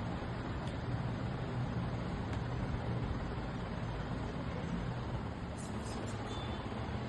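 Steady background noise: an even hiss with a low hum underneath, with no distinct events.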